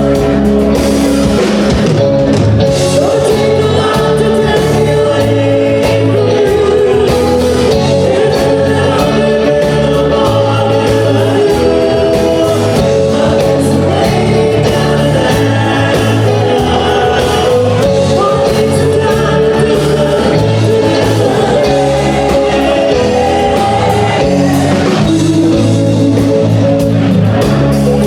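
Live yacht-rock band playing loud, with lead vocals singing over bass and guitar.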